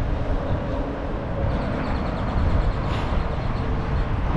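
Steady low rumble of a moving vehicle's engine and road noise, with no sudden events.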